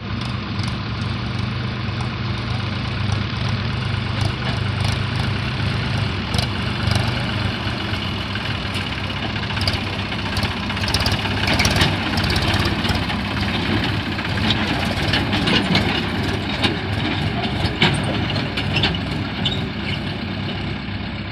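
Heavy diesel engines of a backhoe loader and tractors running steadily, with scattered knocks and clanks through the middle stretch.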